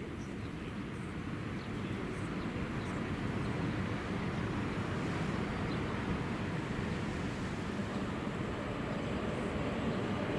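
A train approaching on the line: a steady low rumble that slowly grows louder.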